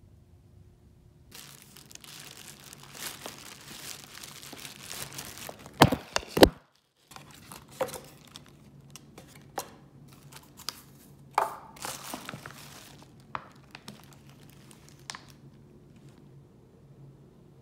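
Plastic takeout bag crinkling and rustling as takeout containers are handled and unpacked, with sharp clicks and knocks of plastic lids and clamshell containers; the loudest is a pair of knocks about six seconds in. Single clicks follow for several more seconds, then it settles.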